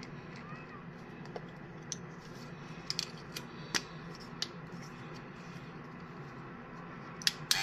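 Scattered small clicks and taps from handling a metal vintage T9 hair trimmer and fitting its parts, with two sharper clicks near the end, over a low steady room hum.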